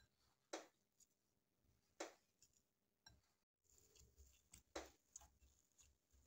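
Near silence, with a few faint, soft strokes of hands kneading a crumbly mixture of ground sesame, dry milk and powdered sugar in a glass bowl.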